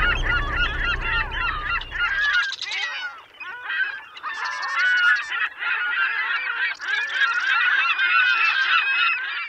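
A large flock of gulls calling over a landfill, a dense chorus of many overlapping squawks and cries. A low rumble runs under the first couple of seconds and stops suddenly.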